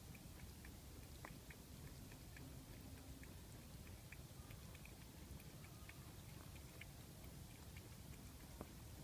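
Ginger tabby cat lapping water from a plastic bowl: faint, quick ticks a few times a second over a low steady rumble.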